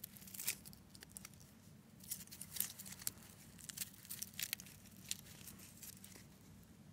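A stiff brush scrubbing dirt off a snowmobile carburetor body: a run of faint, irregular scratchy scrapes and taps that die away about five seconds in.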